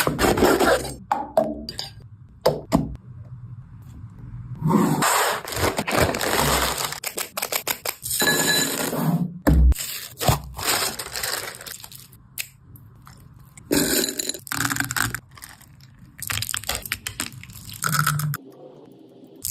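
Irregular crunching and scraping, with scattered clicks and knocks, from food and utensils being handled.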